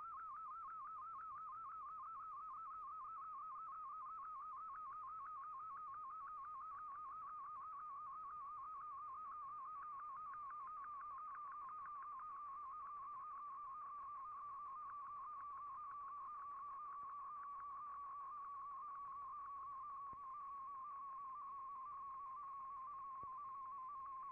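Slow-scan television (SSTV) picture signal from a shortwave broadcast, heard through an Icom IC-R8600 receiver: a high warbling tone with a fast, even flutter, one flick per scan line, that slides slowly lower in pitch. The low, narrow tone carries a mostly dark picture.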